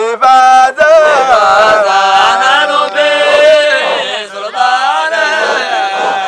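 Men chanting a Sufi dhikr in rhythmic call and response. A lead voice sounds through a handheld megaphone over a group of men's voices.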